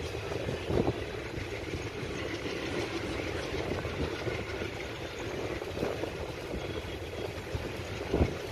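Twin WDM-3D ALCO diesel locomotives working hard as the train accelerates, heard from a coach window behind them, mixed with the steady rumble of wheels on rail. Two sharp knocks stand out, about a second in and near the end.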